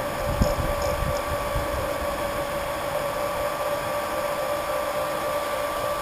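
Small electric pump running steadily, pumping wort through a plate chiller: a constant whirr with a steady whine.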